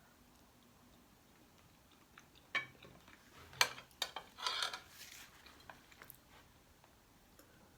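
Cutlery clinking against a plate a few times, with a short scrape in the middle of the clinks.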